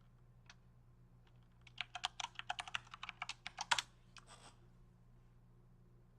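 Typing on a computer keyboard: a fast run of keystrokes lasting about two seconds, then it stops, leaving a low steady hum.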